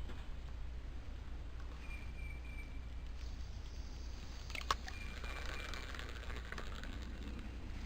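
A bird calling a short run of high notes about every three seconds over a low steady rumble, with one sharp click about halfway through.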